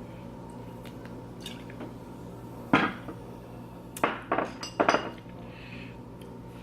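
Cutlery clinking and knocking against a plate or dish: one sharp knock near the middle, then a few short clinks in quick clusters a second or two later.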